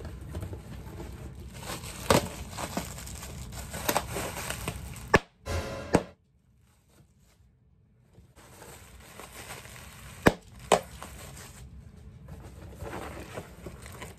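Packaging being opened by hand: plastic wrapping crinkling and a cardboard shipping box being handled and pulled open, with several sharp knocks and taps. The sound cuts out for about two seconds midway.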